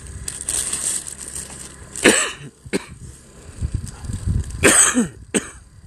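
A person coughing in two short fits, each a harsh cough followed by a shorter one.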